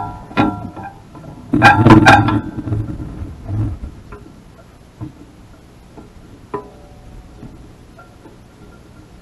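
Sharp knocks and taps, each with a brief ringing, as an American robin pecks at chopped grapes in a plastic tray feeder hung in a wire frame. There is a loud quick cluster about one and a half to two seconds in, then a few fainter single taps spaced out afterwards.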